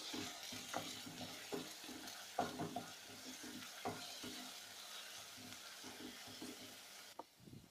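Onion and ginger-garlic paste sizzling in hot oil in a pan while a spatula stirs, with scattered short scrapes against the pan. The sizzle cuts off abruptly near the end.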